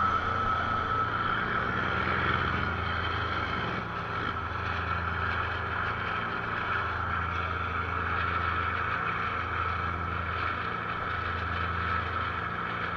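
Small fishing boat's engine running steadily at an even speed, a constant hum with a steady whine above it.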